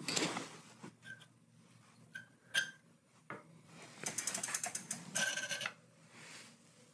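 Metal tool handling on a bicycle's rear end, from a derailleur hanger alignment gauge being moved around the wheel to check a bent hanger. A few separate light clicks and taps, one with a short metallic ring, are followed a little past halfway by two short runs of rapid ratchet-like clicking.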